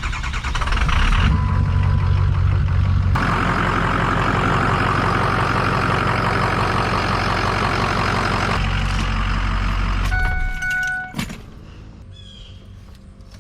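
Ford 6.0 Power Stroke V8 turbo-diesel engine running after the oil change. It gets louder about three seconds in, then shuts off near the end, followed by a few short beeps and a click.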